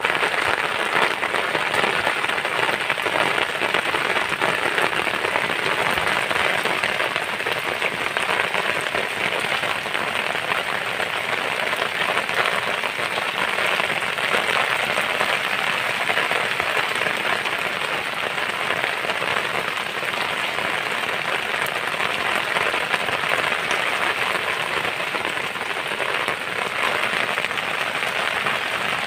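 Heavy rain falling steadily onto standing floodwater, drops striking the water's surface.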